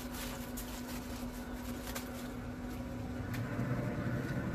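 Aluminium foil crinkling as a brisket is wrapped tightly, over the steady low hum of a pellet smoker's fan. The hum changes and gets a little louder about three seconds in, as the smoker's lid is opened.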